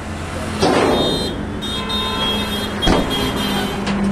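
A vehicle engine running steadily, with two sudden loud bangs about two seconds apart.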